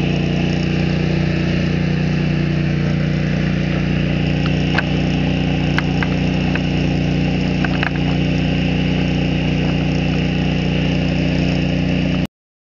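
An engine idling steadily, a constant low drone with a few faint ticks over it, cutting off suddenly near the end.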